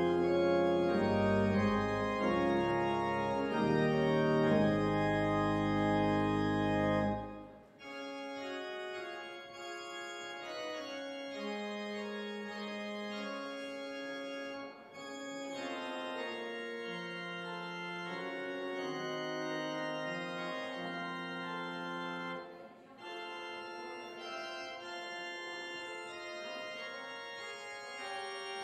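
Church pipe organ playing the postlude. Full sustained chords with deep pedal bass end about seven seconds in, followed by a quieter passage of held notes without the pedal.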